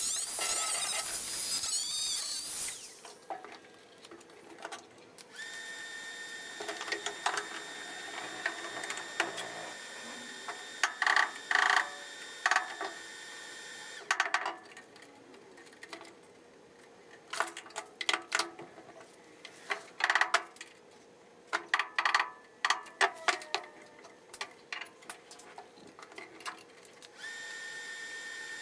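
A high-pitched power tool runs for a couple of seconds at the start. Then a series of short, sharp crackling bursts of welding arc come in clusters over a steady background hum: tack welds on the roll cage's main hoop.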